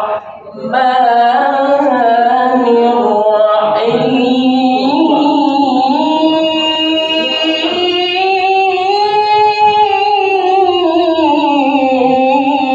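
A man's melodic Qur'an recitation in tilawah style, sung by a qori who has a cough and flu. After a quick breath near the start he holds one long phrase with wavering ornaments, the pitch climbing toward the middle and sinking again near the end.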